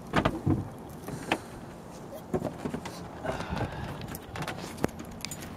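A few sharp knocks and clicks, the first ones near the start and the last one near the end, over a low rumbling background.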